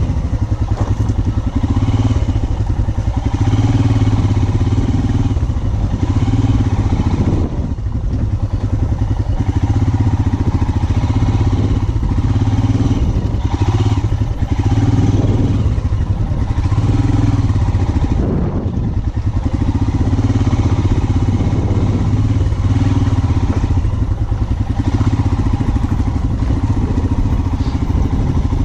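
Royal Enfield Himalayan 411's single-cylinder engine running under load on a rough off-road trail, its note swelling and easing every second or two as the throttle is worked.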